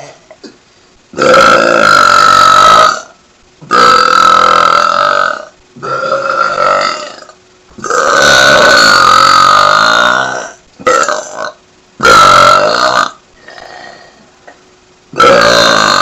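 A woman belching loudly in a run of about seven long belches, each one to two seconds long, with short pauses between them.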